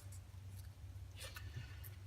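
Low steady hum with a few faint light clicks and rustles from handling, about a second in and again near the end.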